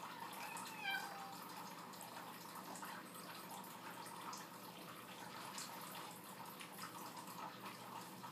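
A domestic tabby cat gives one short meow about a second in, over faint steady room noise.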